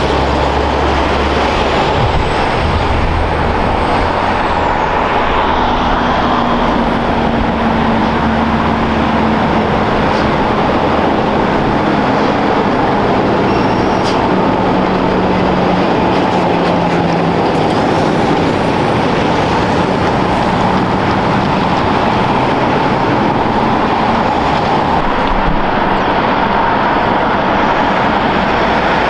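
Heavy trucks driving past on a highway: steady engine and tyre noise, with a low engine hum that slowly drops in pitch over the first half.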